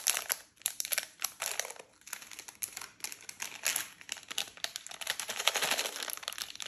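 Plastic candy packets crinkling as hands handle them: a clear bag of jelly lollipops, then a Cadbury Shots packet, in irregular bursts.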